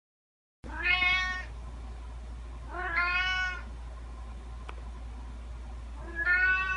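A cat meowing three times, each meow a drawn-out call of well under a second, a couple of seconds apart, over a faint steady low hum. The sound cuts in abruptly from dead silence about half a second in.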